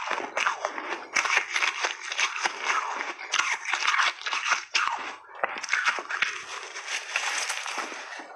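Soft refrozen pink shaved ice crunching as it is bitten and chewed in big bites: a dense, continuous crackle of many sharp little crunches, heard close up.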